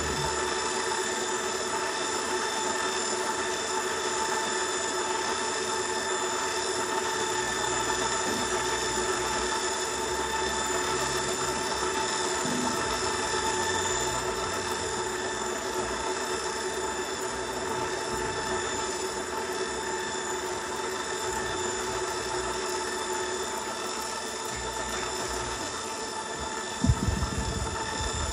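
Sustained electronic drone of many held tones layered together, with low bass notes shifting slowly underneath: live instrument sounds transformed through laptop and effects. Near the end come a few sharp low thumps.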